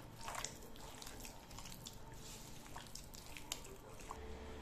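A hand squeezing and kneading soft butter or shortening with sugar in a glass bowl: faint, irregular squelches with small clicks and taps against the glass.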